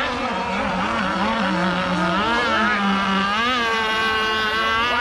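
Several radio-controlled racing boats' small engines running at once at high revs, their pitches rising and falling as the boats throttle and turn. Near the end one settles into a steady high whine.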